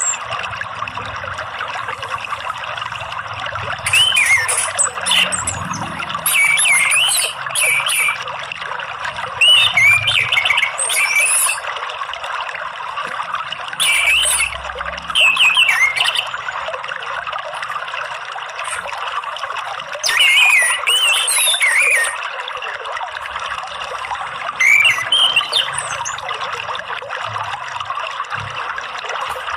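Orange-headed thrush (anis merah) song: short bursts of quick rising and falling notes every few seconds, over a steady trickle of running water.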